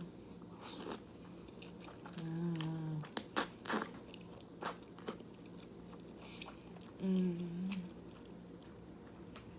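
Close-up eating sounds of a person chewing jjajangmyeon (black bean noodles), with sharp wet mouth clicks and two short hummed "mm" sounds, one about two seconds in and one about seven seconds in.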